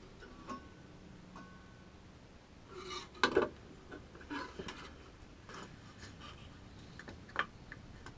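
Scattered knocks and light metallic clinks of the table saw's fence and tools being handled and adjusted, a few clinks ringing briefly, with the loudest knocks about three seconds in.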